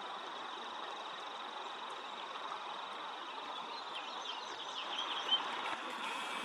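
Outdoor ambience of a steady hiss with a thin, steady high tone, and small birds chirping in short calls from the second half on.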